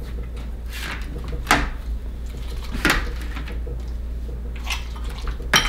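Potato masher pressing fresh raspberries in a glass bowl: about five separate wet strokes, the last two the loudest, over a steady low hum.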